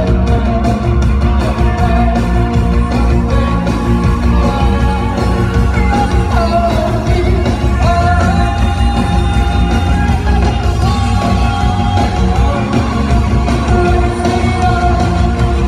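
Live rock band playing: a lead vocalist singing, at times close to yelling, over electric guitar and a full drum kit, with several long held sung notes in the second half.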